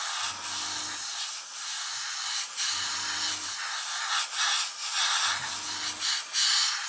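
Airbrush spraying: a steady hiss of air and thinned paint that swells and dips as the trigger is worked, laying on a light, dry coat. A low hum comes and goes about every two and a half seconds.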